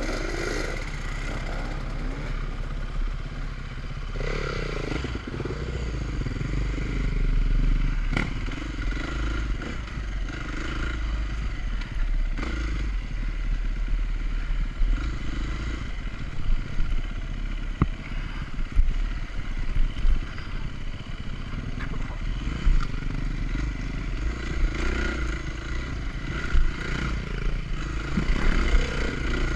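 Enduro dirt bike engine running under varying throttle, rising and falling, on a rough trail. Clatter and sharp knocks come from the bike over the bumps.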